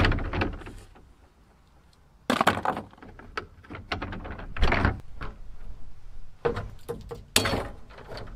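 Hollow knocks and thunks from plastic wheelie bins being handled while broken bicycle dynamo parts are thrown in: about half a dozen separate impacts spread across the few seconds.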